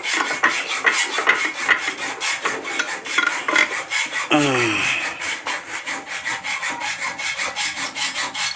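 Rapid, evenly repeated rasping strokes, several a second, with one short falling whine about four seconds in.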